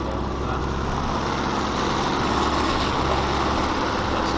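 Off-road four-by-four's engine running steadily under light throttle as it crawls at walking pace along a muddy track, heard from inside the cabin.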